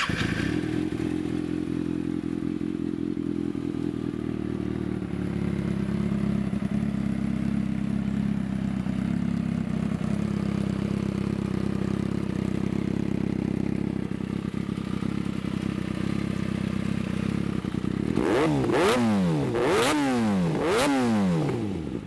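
A 2016 Kawasaki Ninja ZX-6R's 636 cc inline-four idling steadily through an aftermarket M4 GP-style exhaust. Near the end the throttle is blipped three times in quick succession, each rev rising and falling back to idle.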